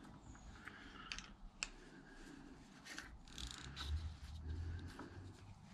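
Faint metallic clicks and scrapes of a spanner on the fuel pipe unions of a tractor's fuel lift pump as the fittings are worked loose.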